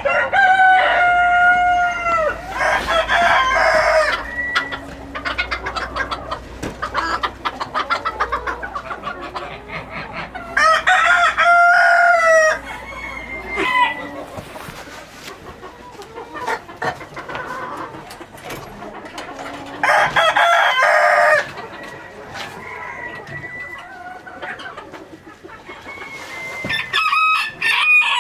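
Roosters crowing several times, each crow a long call that falls off at the end, with hens clucking in between.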